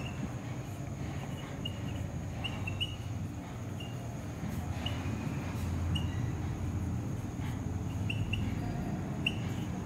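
Marker pen writing on a whiteboard: faint strokes with short, high squeaks every second or so, over a low steady hum.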